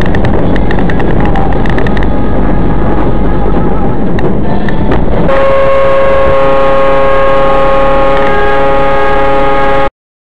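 Loud, rough road noise with sharp clicks from a moving vehicle. About five seconds in, a vehicle horn sounds one long steady blast for about four and a half seconds, then cuts off suddenly.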